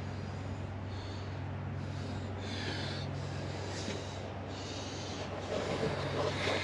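A person breathing and sniffing through the nose close to the microphone, in short soft puffs, over a steady low hum.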